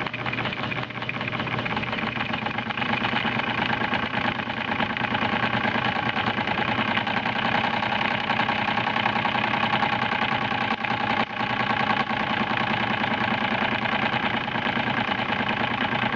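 Jensen Twin-25 twin-cylinder model steam engine chugging along steadily at low speed, with a fast, even beat. It runs slowly because the electric boiler's heater is turned down to about 90 volts, so the steam supply is low.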